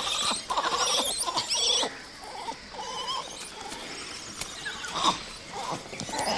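Langur monkeys giving a run of high-pitched calls, loudest in the first two seconds, then fainter, with further short calls about five seconds in and near the end.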